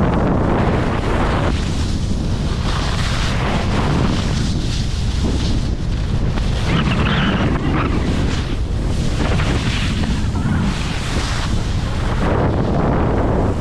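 Wind buffeting the microphone: a loud, steady rumbling rush that swells and dips unevenly.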